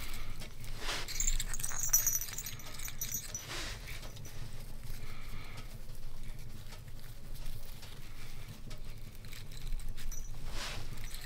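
Small metal jingle bells on a wooden star ornament jingling briefly in the first few seconds as it is handled and tied onto spruce branches, with short rustles of the branches and twine. A low steady hum sits underneath.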